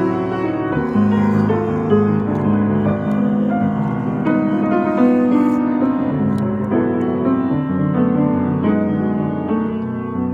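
Piano played with both hands: sustained chords over bass notes with a melody above, the notes ringing into one another, growing slightly softer near the end.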